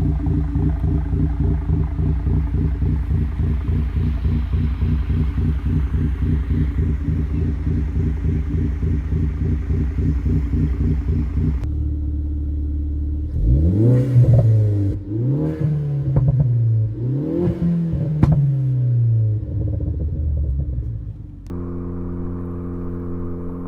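2014 Ford Focus ST's turbocharged four-cylinder, tuned and fitted with a catless downpipe and Cobb cat-back exhaust, running steadily with a regular pulse. After a sudden change it is revved three times, each rev rising and falling, with sharp exhaust pops and crackles as the revs drop. It then settles back to a steady idle.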